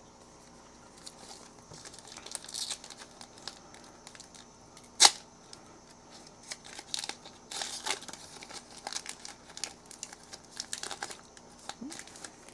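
Foil trading-card pack being torn open and its wrapper crinkled, in short scattered bursts of rustle. A single sharp click about five seconds in is the loudest sound.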